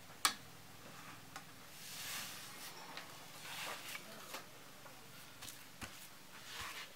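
A sharp knock, then a few light clicks and soft rustling as a person moves on a bamboo platform, sets down an aluminium beer can and steps off across a bamboo slat floor. All of it is faint.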